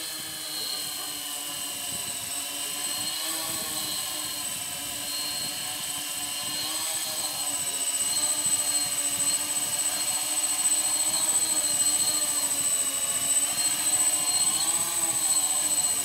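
Heavy X8 coaxial multirotor hovering in loiter mode: the whine of its eight motors and propellers, several tones wavering slowly up and down as the motors hold position against the wind. It grows louder about halfway through.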